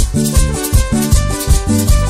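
Latin dance track from a DJ mix: a steady beat with heavy bass hits about twice a second and a shaker rattling fast over it.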